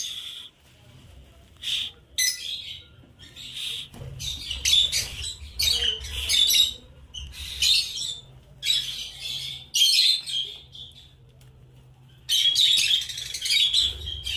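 Rosy-faced lovebirds giving shrill, chattering chirps in short bursts every second or so, busiest near the end.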